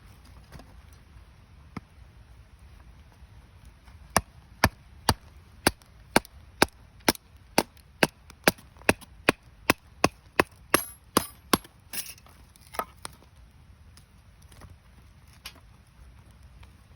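Firewood being chopped: a rapid, even series of about twenty sharp knocks on wood, roughly two a second, with splintering crackles near the end.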